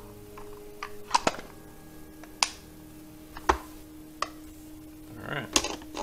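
Hard plastic clicks and snaps as the robot vacuum's dust bin is handled and fitted back into its bay and the lid is closed. Single sharp clicks come about a second apart, and a short burst of rattling clicks comes near the end.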